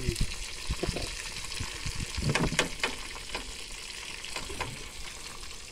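Fish frying in hot oil in a pan, sizzling steadily, with a metal spatula knocking and scraping against the pan as the fish is stirred; the loudest scrapes come about two and a half seconds in.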